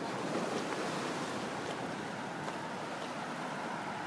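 Sea surf washing onto the shore: a steady rushing noise.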